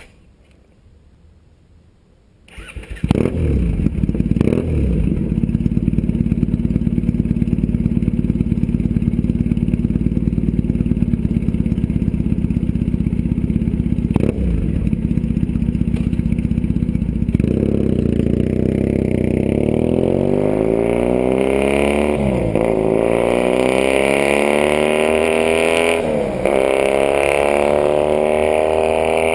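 Triumph Thruxton 900's parallel-twin engine starting about three seconds in and idling steadily. From about halfway it is revved several times, each time climbing slowly in pitch and dropping back, and near the end it holds at higher revs.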